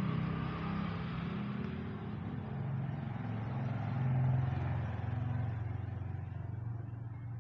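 An engine running with a low, steady hum that grows louder about four seconds in and eases off near the end, like a motor vehicle.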